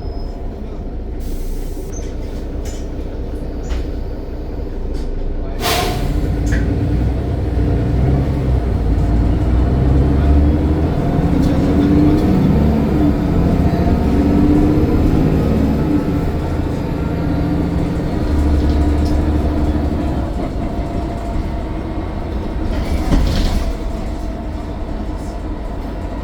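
Mercedes-Benz Citaro bus's diesel engine and drivetrain running, building up in level for several seconds and then easing off. A faint high turbo whine rises and falls over it. There is a sharp knock a little before six seconds in, and another near the end.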